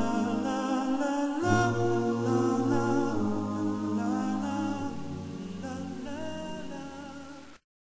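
Intro music of unaccompanied voices singing held chords that change several times, fading down and then cutting off abruptly near the end.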